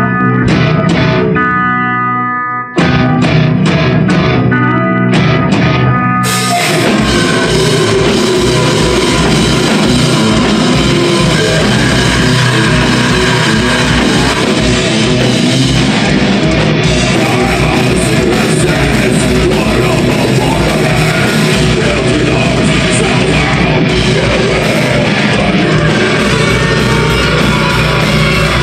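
Live melodic death metal band playing. A repeated distorted guitar riff with little else breaks off for a moment about two and a half seconds in. About six seconds in the drums and full band come in with fast kick drum and vocals.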